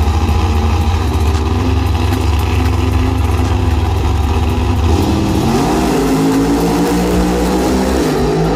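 Drag race car engines idling with a deep, pulsing rumble, then revving up about five seconds in, the pitch climbing and holding higher.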